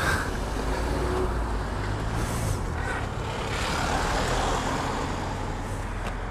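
Motorcycle engine running steadily under wind and road noise, with a short click right at the start.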